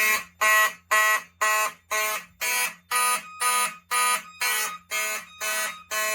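Wheelock and Simplex fire alarm horns sounding together in a steady pulse of about two blasts a second. The system is in alarm after a smoke detector was set off with canned test smoke.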